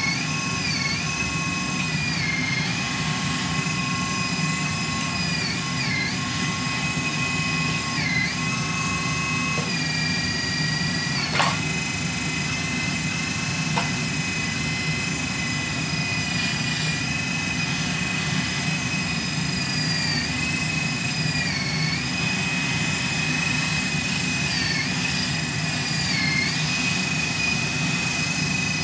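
Radio-controlled hydraulic wheel loader running: a steady motor and pump hum with a high whine that dips in pitch for a moment every few seconds as the loader arms and bucket are worked. A single sharp click about halfway through.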